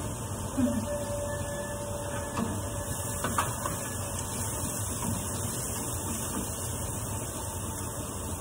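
Chopped onion frying in a pan on a gas hob over a steady hum, with a few short knocks of a wooden spatula against the pan a little past three seconds in.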